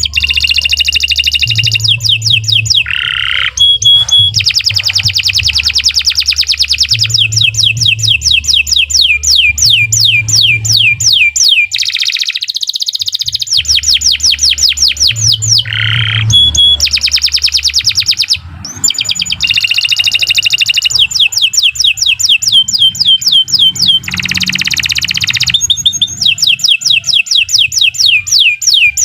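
Domestic canary singing long, fast trills of repeated downward-sweeping notes, several per second. The song changes phrase every few seconds, with short breaks of under a second.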